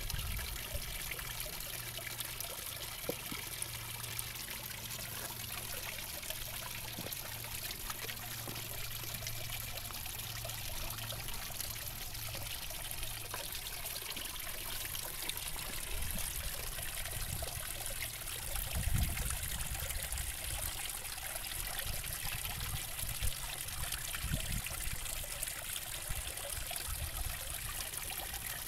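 Water trickling and splashing steadily into a garden fish pond, as from a small fountain or waterfall. A brief low rumble comes a little past halfway.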